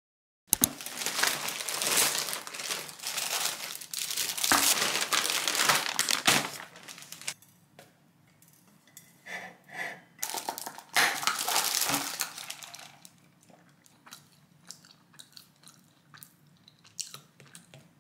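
Plastic bag crinkling and rustling in long bursts as it is handled, through about the first two-thirds. Near the end come scattered light taps, a stylus tapping on a tablet screen.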